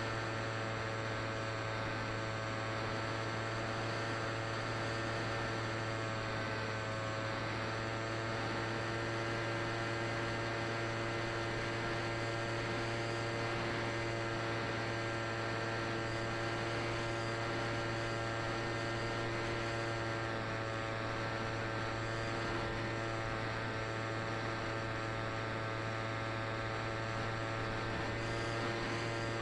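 Steady hum: a low buzz with a stack of evenly spaced overtones and a light hiss, barely changing throughout.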